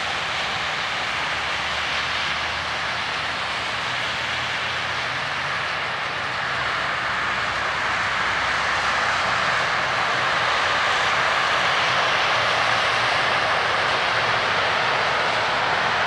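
Steady hiss of highway traffic, tyres running on wet, slushy pavement, with a faint engine hum underneath; it swells slightly in the second half.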